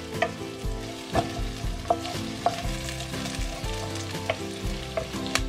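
Chopped ginger and onion sizzling in hot oil in a saucepan while being stirred with a wooden spoon, which knocks against the side of the pan about six times. Faint background music plays underneath.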